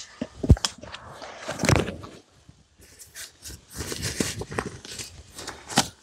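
Irregular rustling and crinkling with scattered knocks, as camping gear is handled and moved about on the ground; a sharp knock about half a second in and another near the end are the loudest.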